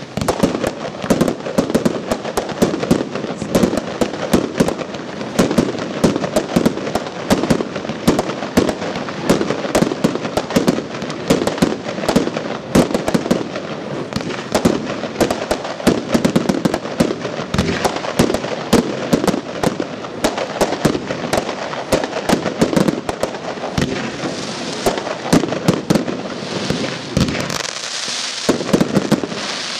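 Fireworks display: a rapid, unbroken barrage of bursting shells and crackling, many bangs a second. A steady hiss joins in near the end.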